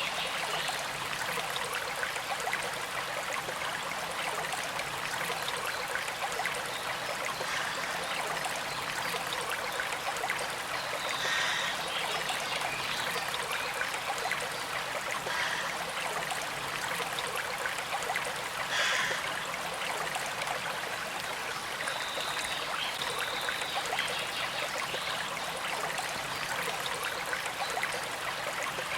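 Creek water flowing and trickling steadily over stones, an even rushing with a few brief high-pitched sounds standing out here and there.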